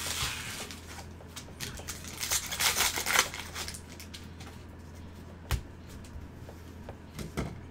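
Foil trading-card pack wrapper crinkling and tearing open, loudest about two to three seconds in, then a stack of baseball cards being handled, with a couple of light taps near the end.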